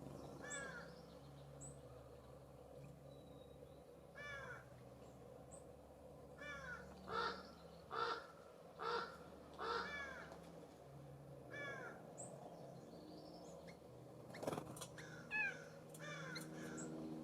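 California Scrub-Jay giving a series of harsh, rasping calls, loudest in a quick run of about one a second in the middle. Faint high chip notes of small birds come between, and a sharp knock sounds near the end.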